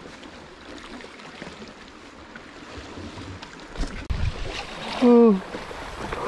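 Footsteps and scuffs on a rocky cliff path over a background of wind and sea. About five seconds in, a man gives a short grunt that falls in pitch, the loudest sound here.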